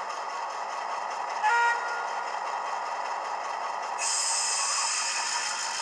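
Sound-decoder recording of an Irish 181 class diesel locomotive played through a small speaker inside the model: the diesel engine running steadily, with one short horn blast about a second and a half in. About four seconds in, a loud hiss joins the engine sound.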